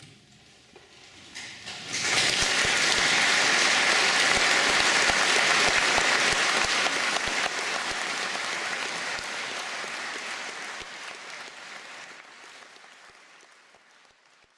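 Audience applauding in a cathedral. It starts about two seconds in, swells quickly to full strength, then slowly dies away.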